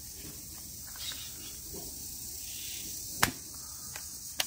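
Black plastic toy dart pistol being handled as a foam dart is loaded: one sharp click about three seconds in, then two lighter clicks near the end, over a steady faint high hiss.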